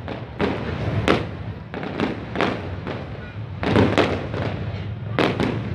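Aerial fireworks going off overhead: a rapid, irregular string of sharp bangs, sometimes two or three close together, over a steady low hum.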